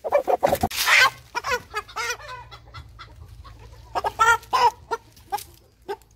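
Kroiler chicken squawking and clucking in distress at being caught and held by hand, in two bouts of calls, with a loud rustling burst about a second in.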